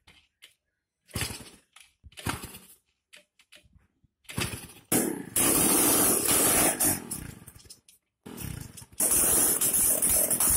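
Small air-cooled single-cylinder engine being cranked: several short failed turns over the first few seconds, then it catches about five seconds in and runs loudly. The sound breaks off briefly around eight seconds in and the engine is running loudly again about a second later.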